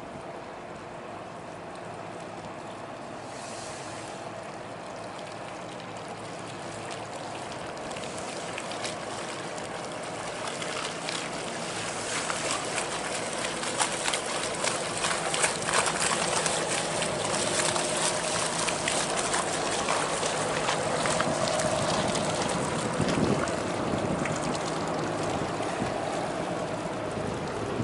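A pushed barge convoy moving slowly past at close range: water rushing and splashing along the steel hull, growing steadily louder, over the steady hum of the pushboat's diesel engine.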